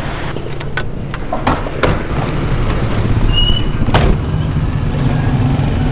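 A car's engine running with street traffic around, a steady low rumble. Several sharp knocks in the first two seconds and a louder click-thud about four seconds in.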